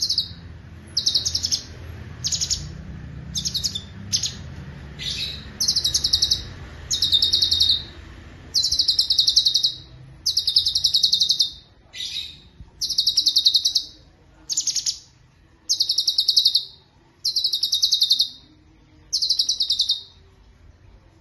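Cucak cungkok singing: a run of rapid, rattling trilled phrases, each about half a second to a second long, repeated with short pauses between them. A few short downward-sweeping notes are mixed in, and a faint low hum sits under the first part.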